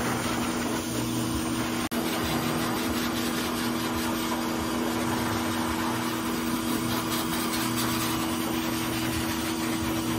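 Pet blow dryer running steadily: an even rush of air over a two-note motor hum, broken by a momentary dropout about two seconds in.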